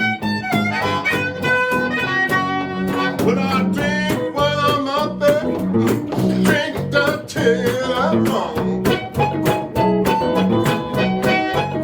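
Live blues: a harmonica plays melody lines with bent notes over a steadily strummed guitar rhythm.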